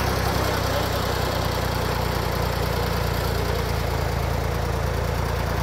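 Farm tractor engine idling steadily with an even low chug.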